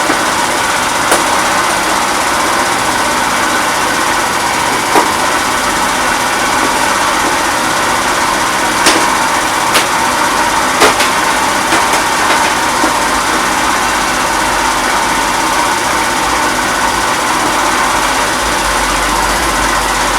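Fada Wind scooter's small petrol engine running steadily while the scooter is ridden, with a few short sharp knocks along the way.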